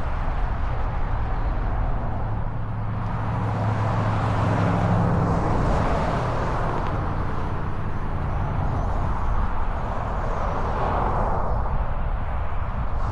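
Steady road and wind noise, with a low engine hum swelling about four seconds in and fading again a few seconds later.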